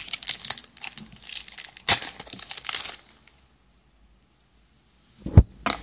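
A trading-card booster pack wrapper being crinkled and torn open by hand, with a sharp snap about two seconds in. After a short silence, a single low thump near the end.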